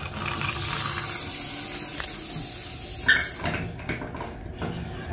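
Open bathroom faucet hissing as air rushes in to break the vacuum in a drained hot-water riser. A brief sharp sound stands out about three seconds in.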